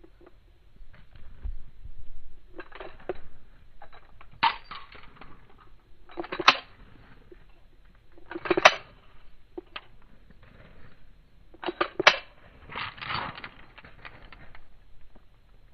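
Metallic clicks and clacks of a handgun being handled: four sharp clacks spread through, with quieter rattling between them.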